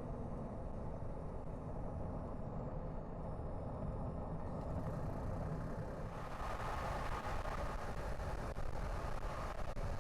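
Car driving on the road: a steady low rumble of tyres and engine, with a louder hiss joining in about six seconds in.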